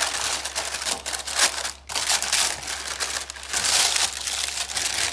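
Baking parchment paper crinkling and rustling as hands press and fold it into a baking pan.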